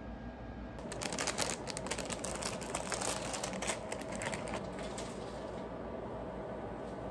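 Crackling and popping from food frying in a pan on the stove. It is dense for a few seconds from about a second in, then thins to scattered pops.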